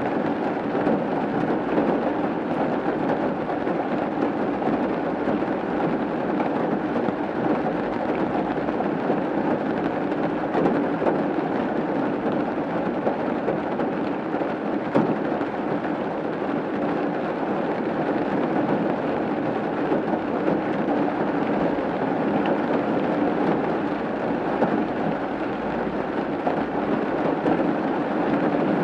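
Steady rain falling on a roof, a dense, even patter of many drops.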